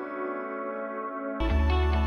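Background music with sustained tones. It thins out with no bass, then the bass and a fuller beat come back in about a second and a half in.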